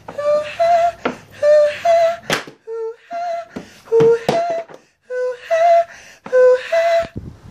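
A man's voice making two-note beeps, a lower note then a higher one, six times over. A few sharp knocks fall between the beeps.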